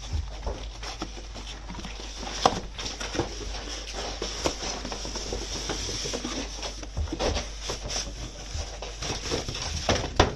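Cardboard packaging of a toy remote-control car being handled: the box pushed across a tiled floor and the inner box slid out of its printed sleeve, with rustling, scraping and scattered light knocks, the loudest about two and a half seconds in.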